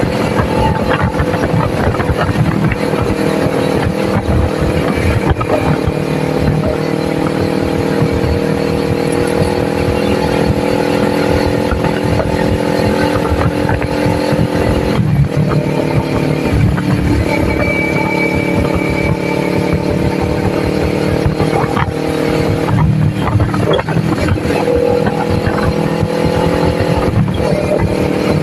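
Kawasaki Ninja 400's parallel-twin engine running at a steady cruise under way. The pitch holds steady, with a brief break and shift about halfway through and a couple more near the end.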